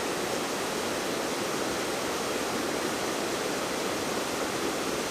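Water rushing steadily down a small waterfall beside a trail.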